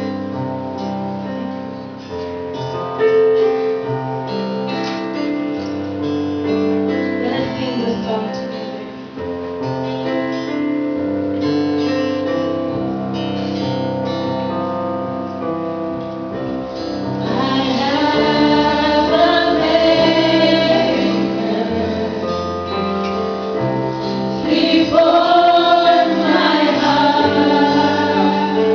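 Worship music: steady held instrumental chords, with a woman's singing voice coming in about seventeen seconds in and again near the end.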